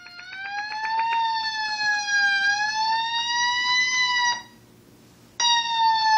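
Fire truck siren wailing with a slowly wavering pitch; it cuts off about four seconds in and starts again abruptly a second later.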